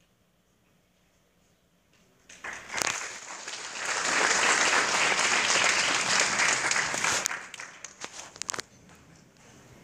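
After about two seconds of near silence, an audience breaks into applause that swells, holds, then dies away into a few scattered claps near the end.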